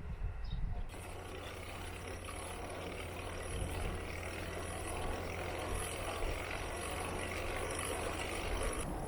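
Steady low hum and rumbling noise of a running vehicle, starting abruptly about a second in.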